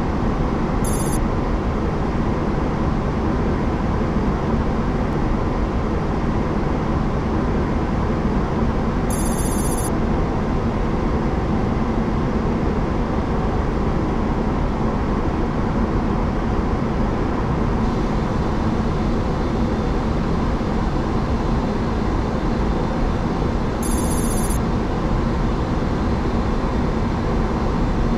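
Steady cockpit noise of a Boeing 737-800 in flight on approach: the constant rush of airflow and engines. Three short, high-pitched ringing chirps stand out over it, several seconds apart.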